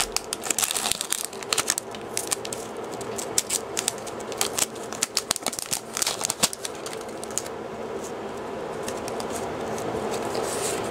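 Foil booster-pack wrapper crinkling and tearing as it is opened by hand. The crackling thins out about seven seconds in.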